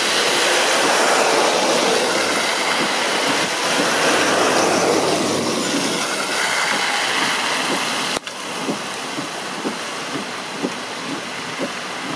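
Cars and vans driving through shallow floodwater on a street, the tyres hissing and spraying water as they pass, one pass swelling and fading. After an abrupt cut about eight seconds in the wash is quieter, with short repeated plops of water.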